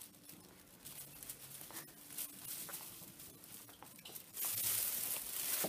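Black plastic bin bag rustling and crinkling as it is handled and carried, with a few light clicks; the rustle gets much louder about four seconds in.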